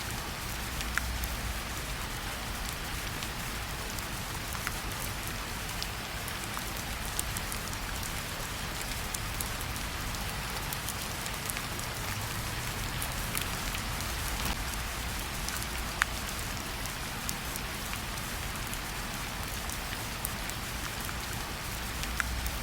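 Steady rain falling on a surface, an even patter with scattered individual drops ticking.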